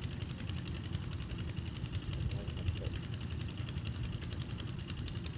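A small engine running steadily, a low rumble with a fast, even ticking over it.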